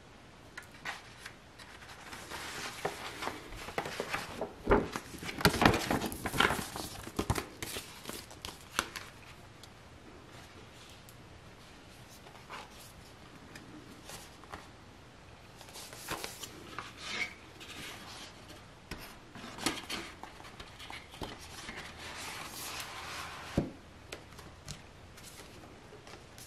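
Hands handling paper and cardboard packaging: a large folded paper poster and a cardboard Blu-ray case and slipcase. The sound is rustling, crinkling and sliding, in two bursts of activity, the first louder. There is one sharp tap near the end.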